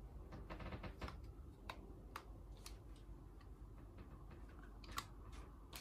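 Faint, scattered clicks and taps, about seven in all, with a short rustle about half a second in: an AirPods Pro charging case and earbud being handled together with an iPhone.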